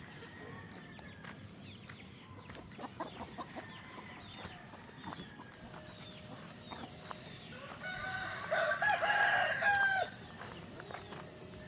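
A rooster crowing once, about two seconds long and the loudest sound, near the end, over scattered short chirps and clucks from chickens.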